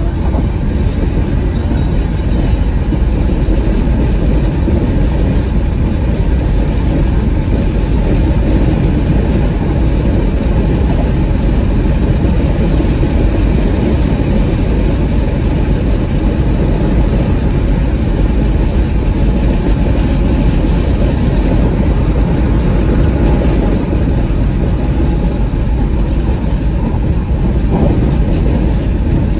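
Steady road and tyre rumble with engine hum inside the cabin of a 2021 Porsche Macan S cruising at highway speed; the noise is mostly low and even throughout.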